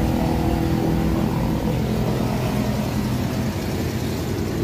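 Suzuki Carry's K6A 660cc three-cylinder engine idling steadily.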